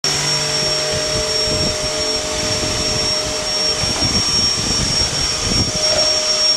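Dyson vacuum cleaner motor running steadily, a constant rushing noise with a thin high whine.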